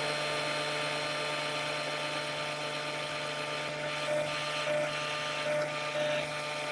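Small benchtop drill press running steadily while its bit drills into 3/8-inch steel plate, with a few slight swells in the second half as the bit is pecked down and pulled back to break the chip.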